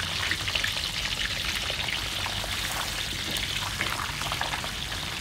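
Whole fish frying in hot oil in a wok: a steady crackling sizzle full of small pops.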